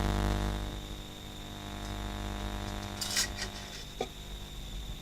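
A buzzing electrical hum with many overtones fades out within the first second, leaving a faint steady high-pitched whine, with two light clicks about three and four seconds in.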